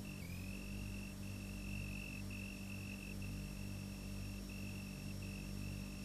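Quiet ambient background music of steady held tones, with a slow low pulse and a high sustained note that breaks off briefly at uneven intervals. All the tones dip in pitch and recover once, just after the start.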